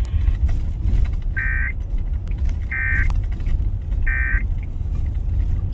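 Emergency Alert System end-of-message data tones: three short, identical bursts of the SAME digital squawk about 1.3 s apart, signalling the end of the alert message, over a steady low rumble.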